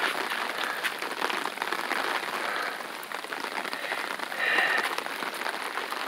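Steady rain falling on wet ground and pavement, an even hiss with many small drop ticks, and a brief louder swell about four and a half seconds in.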